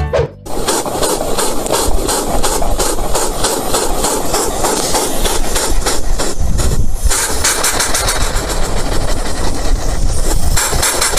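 Motorcycle engine running hard with an even, rapid pulsing while the rear tyre spins in a smoky burnout, with a loud hiss over it. The sound dips briefly past the middle and changes near the end.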